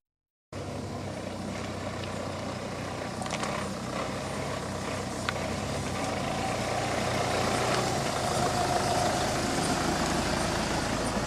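UAZ Hunter off-road vehicle driving slowly along a dirt track, its engine running steadily and growing a little louder as it comes close, with a couple of faint clicks. It starts after a moment of silence.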